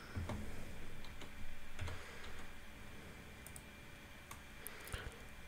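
Faint computer keyboard typing and mouse clicks, scattered keystrokes with a couple of soft low thumps in the first two seconds and a sharper click near the end.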